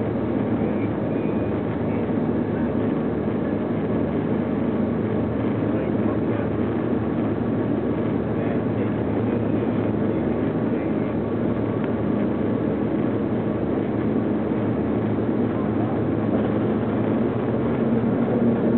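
Steady drone of the Dash 7's four turboprop engines and propellers, heard from inside the cabin during takeoff, with a constant low propeller hum.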